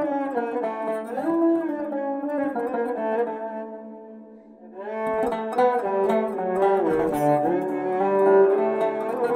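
Turkish tanbur plucked together with a bowed spike fiddle, playing a saz semaisi in makam hicazkâr. About four seconds in the playing thins to a single held note that fades, then both instruments come back in.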